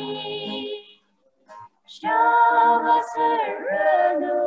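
A small group of women and men singing a hymn together to acoustic guitar. The singing stops for about a second shortly after the start, then comes back in with long held notes.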